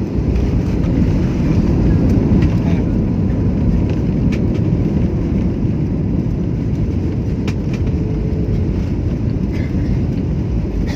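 Steady low rumble inside an airliner cabin during landing: engine and airflow noise, with a few faint clicks.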